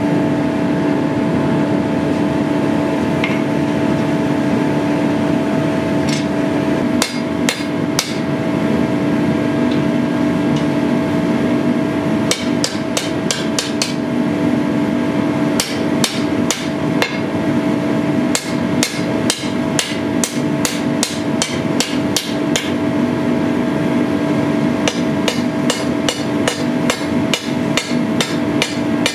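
Hand hammer striking red-hot sword-blade steel on an anvil, in runs of quick blows about three a second with pauses between, the first blows coming about six seconds in. A steady hum runs underneath.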